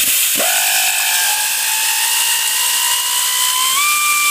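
A power tool drives the centre screw of a harmonic balancer puller, with a steady motor whine over a harsh, noisy edge. The whine rises slowly, then jumps to a higher pitch about four seconds in and holds.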